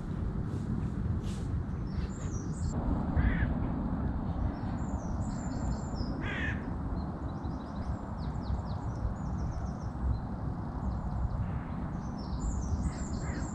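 Crows cawing, with a couple of calls a few seconds apart, while small birds chirp high over a steady low rumble.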